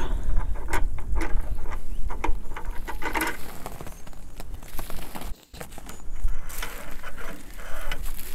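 Scattered clicks and knocks of hands working the fittings of a Sky-Watcher Dobsonian telescope's focuser and eyepiece holder, over a low rumble.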